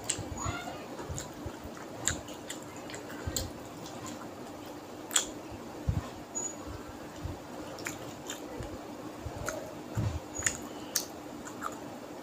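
Wet squishing and clicking of rice and fish curry being mixed and scooped by hand on a plate, with chewing and lip smacks, over a faint steady hum.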